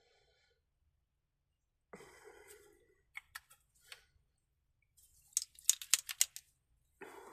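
Light handling clicks: a few scattered sharp clicks, then a quick run of about ten sharp clicks in a little over a second.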